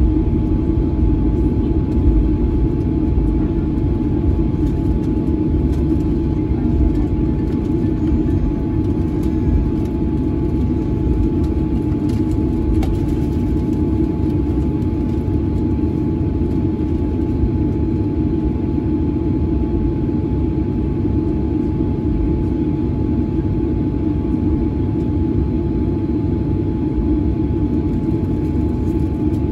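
Cabin noise of a Boeing 737-900 taxiing, heard from a window seat over the wing: a steady low rumble of the CFM56-7B engines at taxi power and the airframe rolling, with a thin steady whine running through it.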